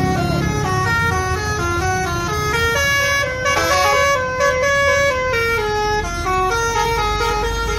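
Telolet bus horn: a set of multi-tone air horns playing a tune, its notes stepping up and down in pitch, over a low rumble.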